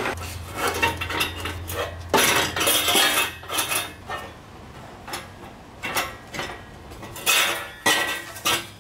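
Titanium exhaust pipes clinking and clanking against metal as they are pushed up under the car for a test fit: a run of light, irregular metal knocks, several close together near the end.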